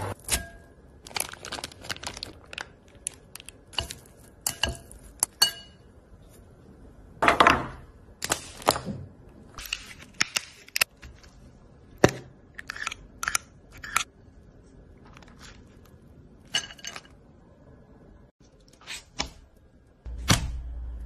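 Irregular crisp crunches, cracks and taps from food being handled and cut with a knife, with short quiet gaps between them; one longer crunch comes about seven seconds in, and a low rumble starts near the end.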